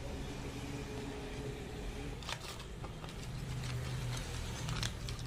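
A steady low background hum. From about two seconds in, a string of light clicks and taps as small plastic LED lights are handled on a rubber mat.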